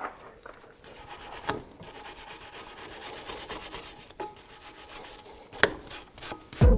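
Brake parts being scrubbed clean by hand: quick, repeated rasping strokes, with a few knocks in between. A loud thump comes right at the end.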